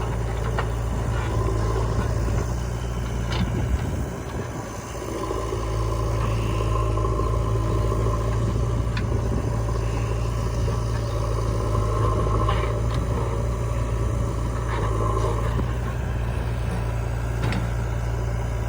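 Heavy diesel machinery running steadily: a low engine hum, with a higher whine that comes and goes every couple of seconds and a few short knocks.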